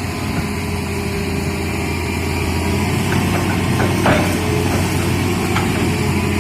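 Excavator's diesel engine running steadily at a low, even pitch, with a faint clank about four seconds in.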